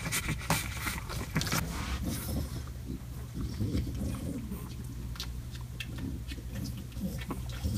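Newborn puppies grunting and snuffling, with scattered small clicks and rustles, over a steady low hum.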